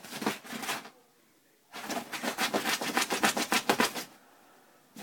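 Staffordshire bull terrier tearing at an old mattress's fabric: a few short scratches, then a fast run of scratchy strokes, about nine a second, for about two seconds.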